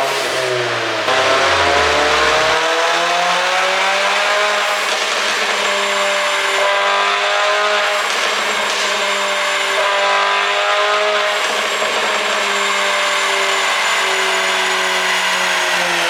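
Mercedes-AMG A45's turbocharged 2.0-litre four-cylinder engine, running an ECU pop-and-crackle tune, revs up over the first couple of seconds and then holds a steady high engine note.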